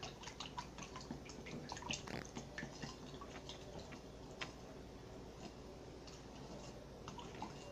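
Faint, irregular small wet clicks and squishes of glue being stirred in a bowl with a plastic stick, along with borax water being stirred by hand in a glass bowl.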